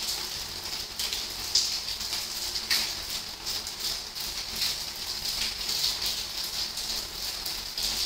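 Rain falling, a steady hiss with irregular drops pattering and ticking, a couple of louder drops in the first three seconds.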